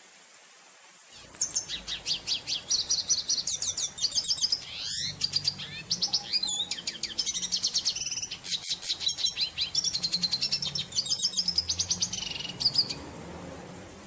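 Red siskin singing: one long, fast twittering song of rapid trills and slurred high notes, starting about a second in and stopping shortly before the end.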